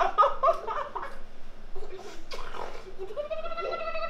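Laughter, giggling and babbling between a woman and a toddler at play. About three seconds in comes one long high squeal, the kind of sound a delighted baby makes.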